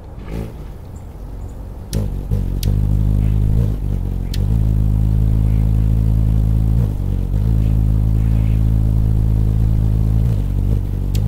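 Anna's hummingbird's wings humming as it hovers: a loud, low, steady buzz that starts about two seconds in, its pitch alternating between roughly 50 and 60 beats a second and wavering slightly now and then. A few sharp clicks stand out over it.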